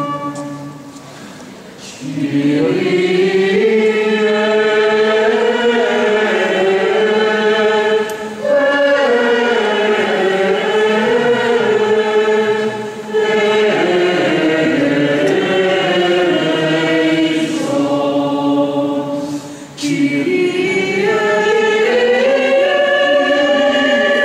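Choir singing a liturgical chant during Mass, in a large church. It comes in about two seconds in and goes in four long phrases with short breaks between them.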